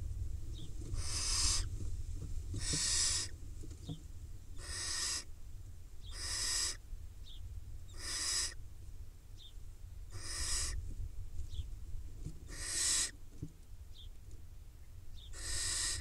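Barn owl nestlings giving their hissing, snore-like food-begging calls, eight times at about two-second intervals, each call lasting about half a second. Faint short chirps come between the calls.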